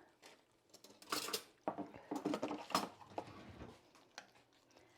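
Metal cutlery and kitchenware clinking and clattering, a run of sharp clicks and knocks with the loudest about a second and a half in and again near three seconds.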